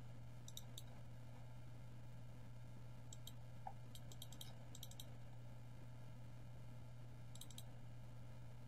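Faint computer mouse clicks, several of them in quick pairs like double-clicks, over a steady low hum.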